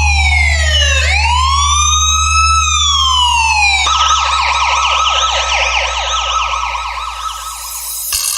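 Electronic police-style siren: slow wails gliding down, up and down again, switching about halfway to a fast warbling yelp. A steady deep bass hum runs under it, and both stop shortly before the end.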